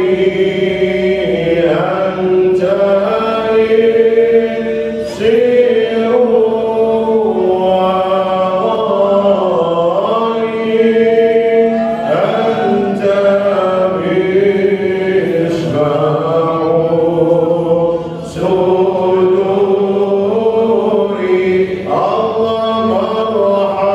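Voices chanting Islamic dhikr in long melodic phrases. The pitch slides between notes, and a new phrase starts every few seconds.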